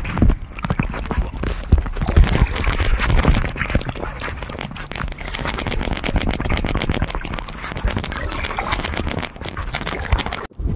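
Loud, dense crackling and rubbing noise on the microphone over a low rumble, the sound of the camera being handled; it cuts off abruptly near the end.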